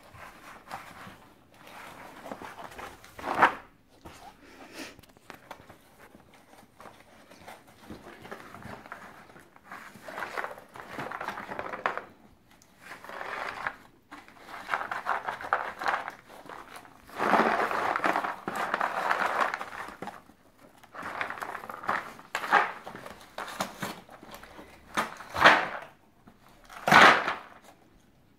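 A dog foraging in a cardboard yogurt-cup tray: on-and-off rustling and crinkling of the cardboard as it sniffs and noses dry treats out of the cups. Three sharp knocks stand out, about three seconds in and twice near the end, as the rubber toys sitting in the cups are shoved about.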